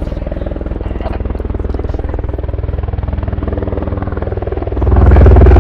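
Propeller aircraft engines droning with a fast, even beat, growing suddenly much louder about five seconds in.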